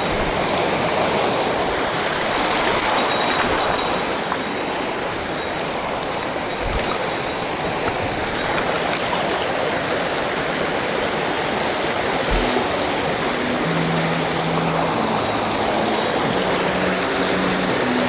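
Mountain stream water rushing steadily over rocks. Background music with low notes comes in faintly about two-thirds of the way through.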